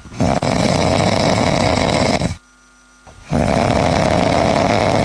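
Loud, drawn-out snoring: two long snores of about two seconds each, a second apart, each starting and stopping abruptly.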